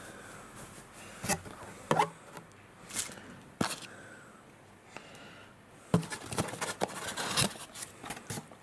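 Handling noises while unpacking a camcorder and its accessories: a few separate light knocks and clicks, then a busier run of small taps and rustling from about six seconds in.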